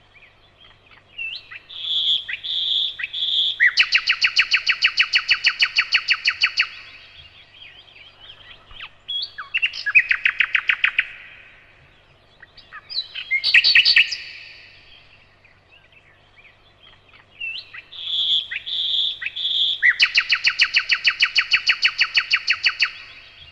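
Nightingale singing in separate phrases: a few clear whistled notes lead into a loud, rapid rattling trill, with shorter varied phrases between. The same phrase comes twice, near the start and again near the end.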